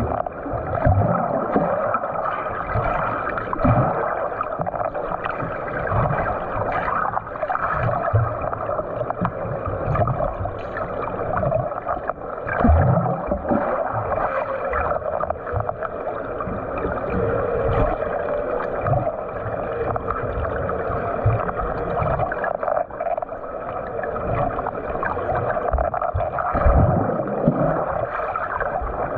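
Water churning and gurgling from a swimmer doing butterfly-stroke drills, with irregular low thumps and splashes.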